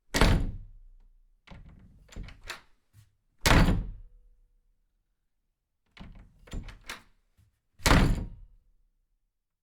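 Three heavy thuds about four seconds apart, each fading out over about a second, with groups of lighter knocks between them.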